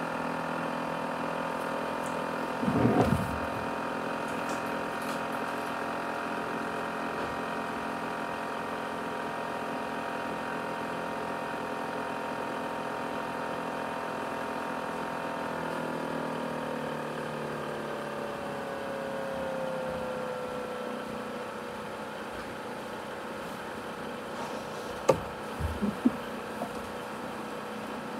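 ASUS X543UA laptop's CPU cooling fan whining steadily at high speed, then slowing with a falling pitch from about halfway through. A short knock near the start and a few sharp clicks near the end.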